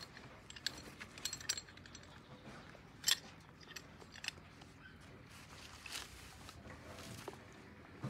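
Sparse light clicks and taps over a quiet background, with a sharper click about three seconds in.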